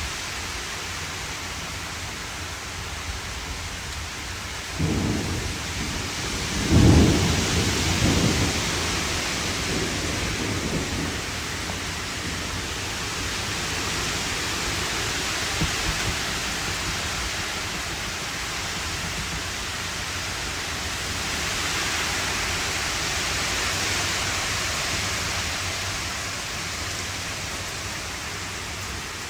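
Heavy rain falling steadily in a thunderstorm. Thunder rumbles about five seconds in, cracks loudest a couple of seconds later and rolls on for several seconds before the rain carries on alone.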